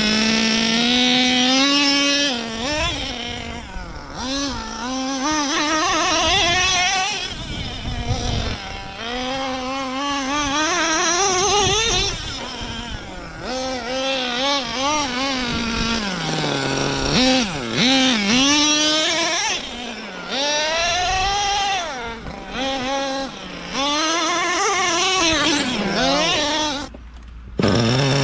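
Radio-controlled car's motor running hard, its pitch rising and falling again and again as the throttle is worked, with a brief cut near the end.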